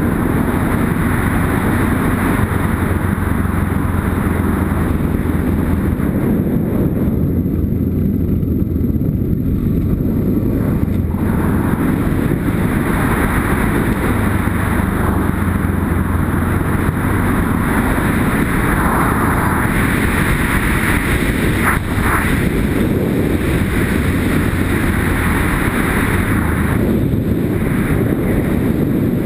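Yamaha Ténéré adventure motorcycle engine running while riding over gravel, its note shifting a little with the throttle, heard from a helmet-mounted camera with wind rushing over the microphone in swells.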